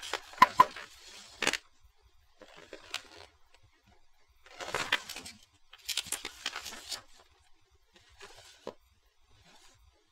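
Pages of a paper model-kit instruction booklet being flipped and handled: a series of short, crisp paper rustles and snaps with quiet gaps between them.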